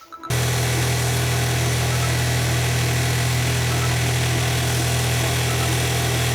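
Homemade scrap hammermill running, a loud, steady low hum under a dense whirring noise that cuts in abruptly just after the start and holds without change.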